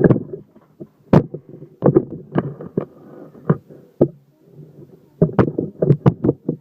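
A phone being handled and fitted into a tripod close to its own microphone: a string of irregular knocks, clicks and bumps with rustling between them.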